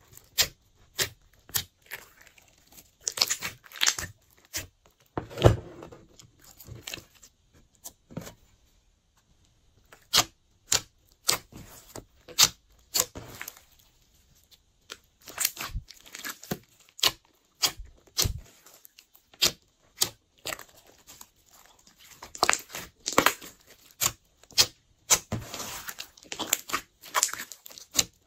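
Glossy slime being squeezed, kneaded and stretched by hand, giving off irregular sticky pops, clicks and crackles. There is a short lull about nine seconds in.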